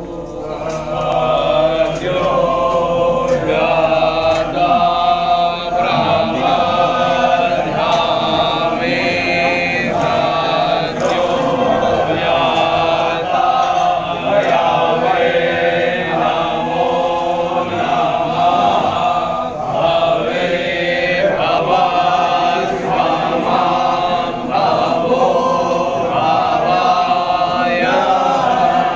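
A group of voices chanting a Hindu devotional hymn together in a continuous melodic chant, the pitch moving up and down.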